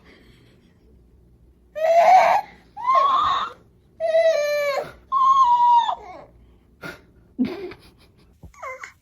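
A baby crying in four loud, high-pitched wails, each under a second long, followed by two shorter, fainter whimpers near the end.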